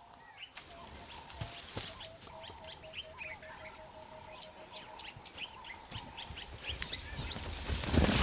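Small birds chirping in the bush, with one bird giving a rapid run of repeated low notes for a few seconds. Near the end a loud rush of crashing brush and heavy footfalls builds as a hippo charges out at the lions.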